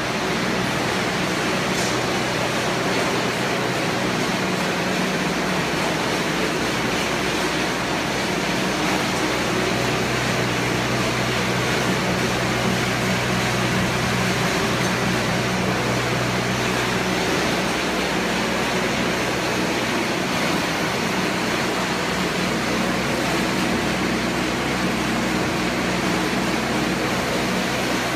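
AEO-10A screw air compressor running under test: a steady mechanical hum under an even rush of air that holds unchanged throughout.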